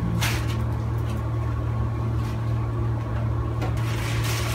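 A steady low hum, with brief crackles of a thin plastic bag being handled about a quarter second in and again near the end.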